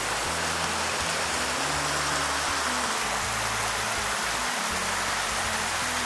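Shallow forest stream rushing and splashing over rocks in small cascades, a steady hiss of moving water. Background music with held low bass notes plays underneath.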